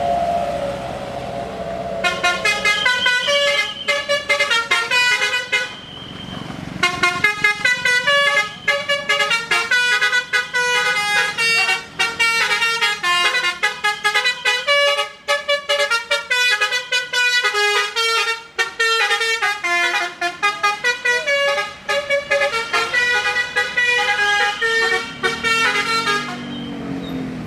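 Bus telolet horn, a multi-note air horn, playing a fast melody of short notes. It starts about two seconds in, breaks off briefly around six seconds, then runs on and stops shortly before the end, over a low engine rumble.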